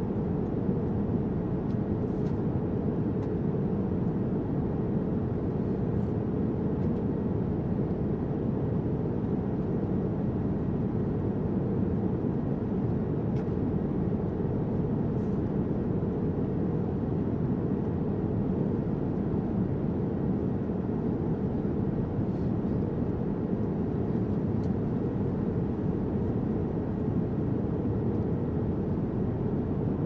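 Jet airliner cabin noise at cruise, heard inside the cabin by a window over the wing: a steady low rush of engine and airflow noise, with a faint steady hum above it.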